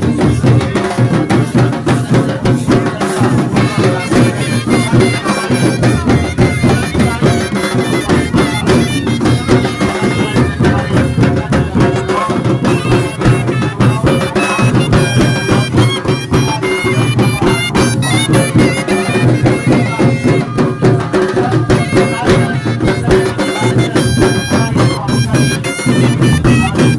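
Loud traditional folk music with drumming and held melody notes, typical of the music played for a Sarhul procession.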